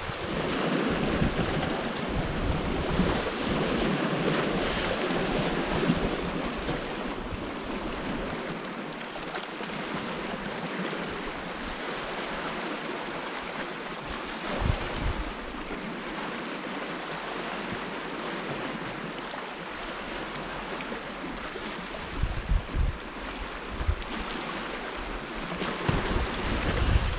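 Small sea waves washing against a rocky shore, a steady hiss of surf, with wind gusting on the microphone now and then, mostly near the end.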